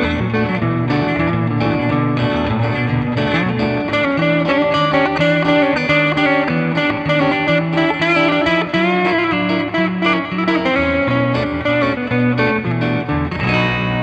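Bacchus BJM-1R Jazzmaster-style electric guitar played through a Nux MG-30 multi-effects modeler: a quick melodic lead line of many fast notes. Near the end it settles onto sustained ringing notes.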